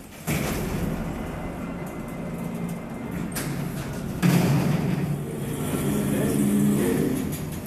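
Dover service elevator's power-operated doors opening on arrival: first the outer door slides open, then about four seconds in the car's mesh gate lifts. Both move with a steady motor hum and rumble, loudest while the gate rises.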